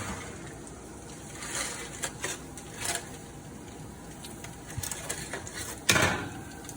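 Kitchen handling noise: scattered light clicks and knocks of cookware and utensils, with one louder clunk about six seconds in.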